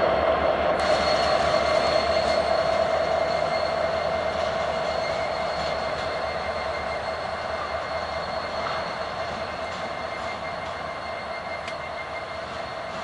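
Freight train cars rolling past on the rails, a steady rumble of wheels with a held squealing tone from the wheels, slowly growing quieter.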